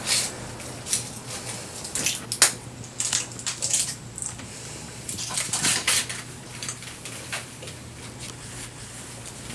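A small foil packet crinkling and being torn open by hand: a run of short crackly rustles over the first six seconds, sparser after that, over a faint steady low hum.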